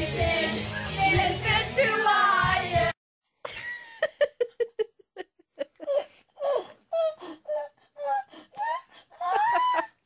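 Pop music with singing that cuts off abruptly about three seconds in. After a brief silence, young women laugh and giggle in short, separate bursts.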